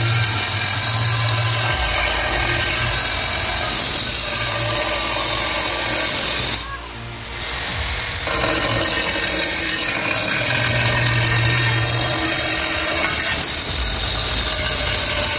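Handheld electric angle grinder cutting through a tile, with a steady high grinding noise. The noise drops away briefly about seven seconds in, then picks up again as the cut continues.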